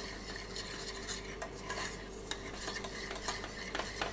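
A spoon stirring in a small stainless steel saucepan, with irregular scrapes and clicks of the spoon against the pan.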